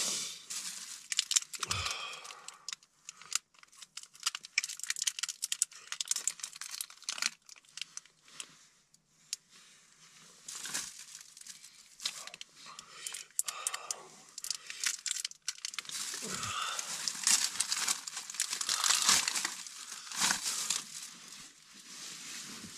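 Plastic bag and biscuit wrapper crinkling and rustling in irregular bursts as they are handled and opened, busiest about two-thirds of the way through.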